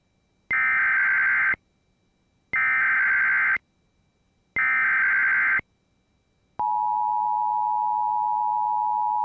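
Emergency Alert System header: three one-second bursts of warbling data tones about a second apart, the digital code that opens an alert. About two-thirds of the way in, the steady two-tone EAS attention signal starts and holds.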